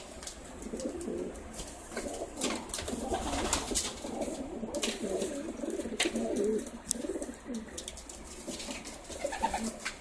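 Racing pigeons cooing, several birds overlapping in a continuous low, wavering warble, with a few short sharp sounds among it.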